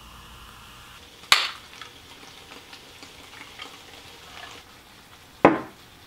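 A glass jar handled on a tabletop: a sharp glassy clink about a second in, a few light clicks and scrapes, then a louder knock near the end as the jar is set down.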